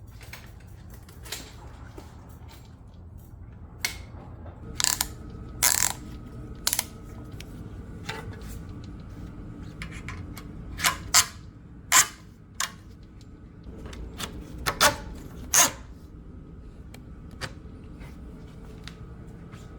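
Metal bike-rack ramp and rack parts handled, a dozen or so sharp clanks and clicks in loose clusters, some ringing briefly, as the ramp is unhooked and moved into place on the hitch-mounted rack.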